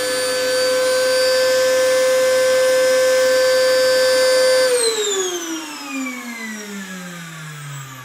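Vacuum cleaner running at full speed with a steady motor whine over the rush of air, then switched off a little past halfway: the whine falls steadily in pitch as the motor winds down.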